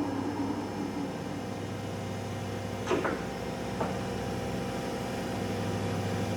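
Monarch engine lathe's drive running with a steady hum, the faint whine of its spindle fading away in the first second. Two sharp clacks come about three and four seconds in.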